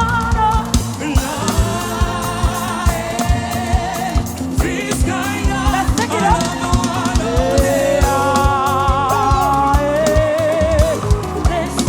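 Live gospel praise music: a band with drum kit playing an upbeat groove under wavering sung melody lines, singing carrying through.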